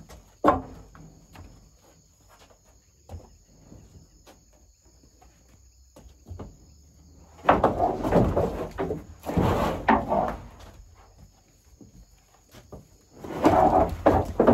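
Agitated, aggressive Nelore cow in a wooden cattle chute, knocking and scraping against the boards as a hat is waved at her face. There are scattered sharp knocks and a strong one about half a second in, and two longer, louder rough stretches of noise, one about halfway through and one near the end.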